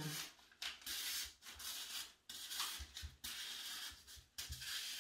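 Paper pattern rustling and rubbing as it is handled and slid against a surface, in about five short strokes.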